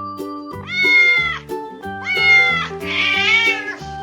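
Domestic cat meowing three times, the third call rougher and noisier than the first two, over background music.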